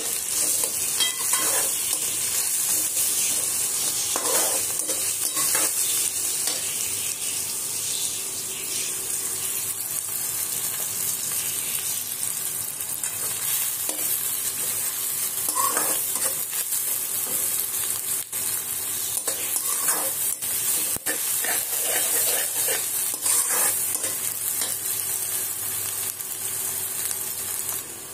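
Sliced onions sizzling in hot oil in a metal wok, stirred and scraped now and then with a slotted spatula, being fried to light brown.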